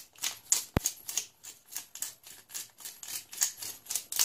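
Hand pepper mill grinding black pepper: a quick, even ratcheting of clicks, about three or four a second, with one sharper click about a second in.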